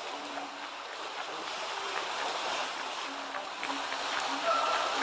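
Pool water sloshing and splashing as an elephant wades through it: a steady rushing that grows slowly louder.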